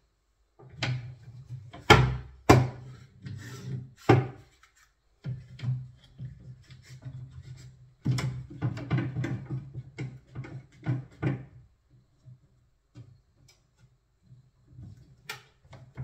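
Kitchen cabinet panels knocking and rubbing together as a corner post is shuffled into place against a unit door, with sharp knocks about two and four seconds in. Then a plastic bar clamp is handled and tightened onto the post with a run of clicking and rubbing.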